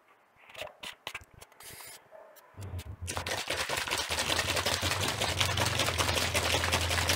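A few small clicks as the cap goes onto a plastic bottle of white paint with added red colorant, then, about two and a half seconds in, the bottle is shaken hard to mix the colorant into the paint: a dense, steady, rapid rattling.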